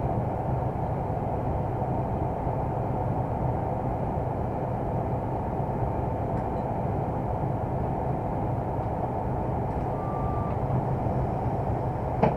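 Steady cab noise of a 060-DA (LDE2100) Sulzer diesel-electric locomotive on the move: the diesel engine's drone mixed with wheel and rail rumble. A brief high beep sounds about ten seconds in, and a sharp click near the end.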